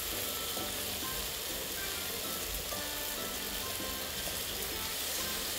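Marinated beef slices sizzling on a hot nonstick griddle plate, the fat popping as it fries, with background music playing over it.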